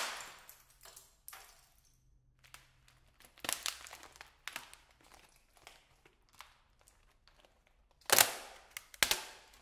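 Plastic computer keyboard being bent and twisted by hand: a sharp crack at the start, scattered small creaks and cracks of the plastic, then two loud cracks about eight and nine seconds in as the casing breaks.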